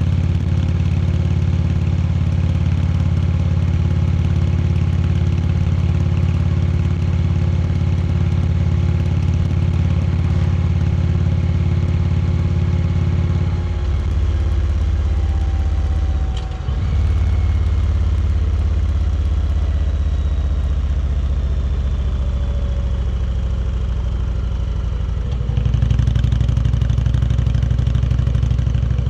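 Indian Chieftain Dark Horse's V-twin engine running steadily under way. The engine note changes about halfway through, with a brief dip, then gets louder near the end as the throttle opens.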